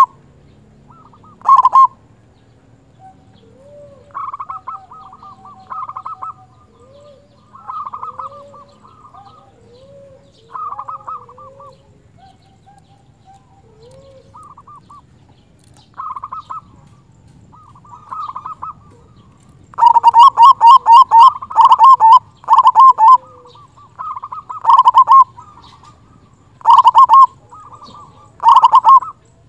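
Zebra dove (perkutut) cooing in short staccato phrases. The phrases are quieter through the first two-thirds, with some fainter, lower gliding notes among them. About two-thirds in comes a loud, rapid run of coos, followed by loud short coo phrases about every two seconds.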